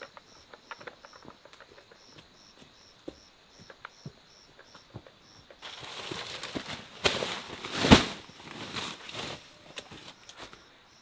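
Insects chirping in a steady high rhythm, about three chirps a second, with faint footsteps. About halfway through this gives way to the rustle of plastic sacks and a heavy thump as they are set down on the ground.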